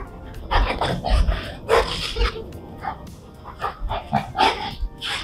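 Labrador retriever giving a run of short barks and grumbles, about nine brief bursts.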